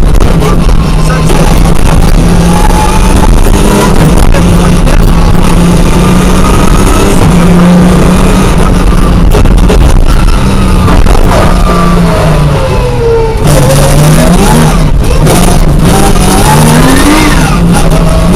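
Opel Ascona rally car engine heard from inside the cabin, very loud and revving hard, its pitch rising and falling repeatedly; about thirteen seconds in the revs drop briefly, then climb again.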